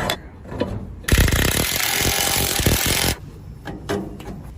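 Impact wrench running in one rapid hammering burst of about two seconds, starting about a second in, tightening a fastener. Light knocks of parts being handled come before and after it.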